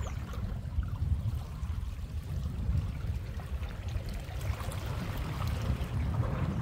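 Wind buffeting the microphone with a gusty low rumble, over small waves lapping and splashing against the shore rocks, the water louder about four to six seconds in.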